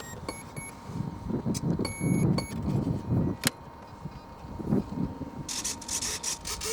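Short electronic beeps in two quick groups as the RC jet's electronics are switched on and armed, over low rumbling gusts and a faint steady tone. A hiss begins near the end.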